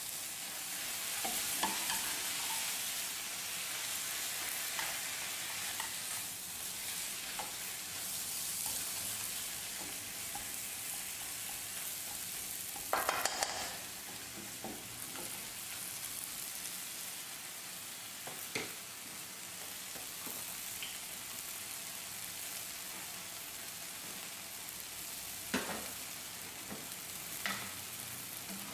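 Water morning glory stir-frying in hot oil in a nonstick pan: a steady sizzle, with the spatula scraping and knocking against the pan now and then and a short run of knocks about halfway.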